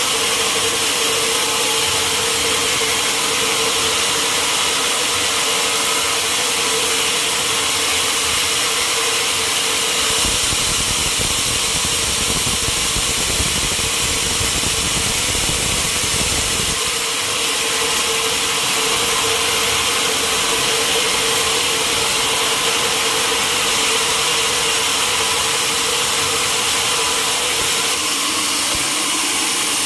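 Sawmill running as it saws a large mahogany log: a steady machine hum with a constant tone over a wide hiss. A deeper rumble grows stronger for several seconds around the middle, then drops back.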